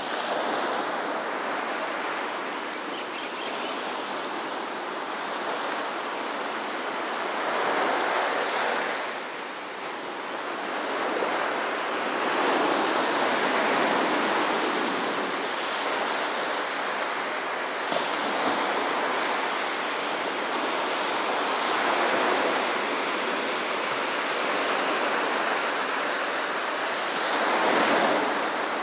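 Small ocean waves breaking and washing up a sandy beach: a steady hiss of surf that swells louder every few seconds as each wave comes in.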